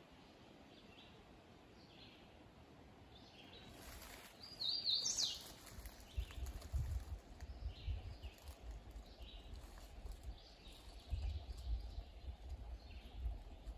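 Forest birds calling: short high chirps repeated every second or so, with one louder, brighter call about five seconds in. From about six seconds in, low irregular thuds join in.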